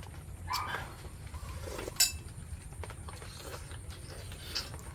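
A dog whimpering briefly about half a second in, then a single sharp clink about two seconds in, the loudest moment, with a few fainter ticks after it.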